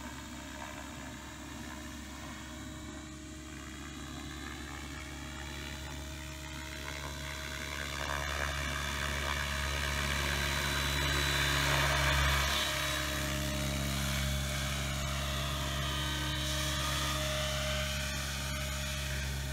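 Align T-Rex 700E electric RC helicopter in flight: the rotor's steady drone under a high motor-and-gear whine. It gets louder as it comes lower and closer around the middle, and the whine's pitch bends up and down as it moves past.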